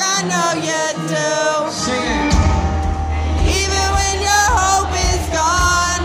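Live rock band with a singer performing. A heavy bass and drums come in about two seconds in under the singing.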